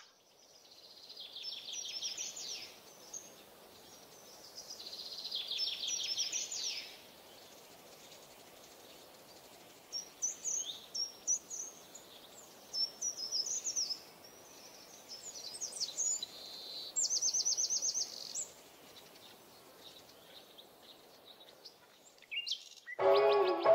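Birds singing over a faint steady hiss: two high rapid trills in the first seven seconds, then scattered chirps and another fast trill around seventeen seconds in. Music starts near the end.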